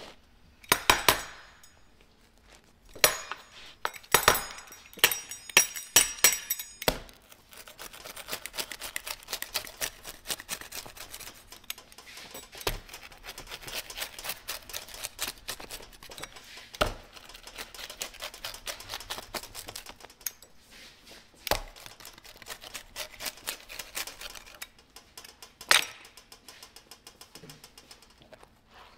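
Several sharp metallic clinks with a ringing tail, then the crust and Frito-covered top of a pizza being cut: a dense, fast crackle of crunching with a few louder snaps, ending in one last sharp click.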